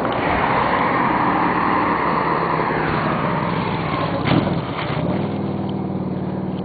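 A motor vehicle engine running, under a broad rush of noise in the first few seconds. A sharp knock comes a little past four seconds in, and the engine's hum then rises slightly in pitch and holds steady.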